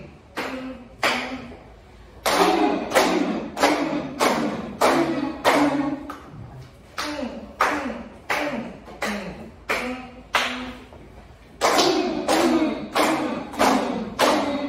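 A group of people clapping hands together in a steady rhythm, about two claps a second, with voices chanting along in time with the claps.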